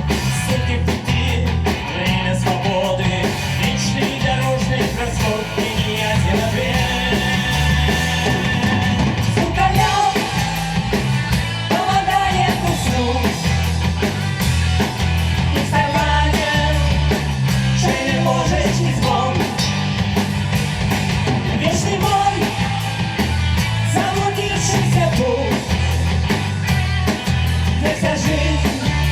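Rock band playing live: electric guitars, bass guitar and drum kit keeping a steady beat, with a voice singing over them.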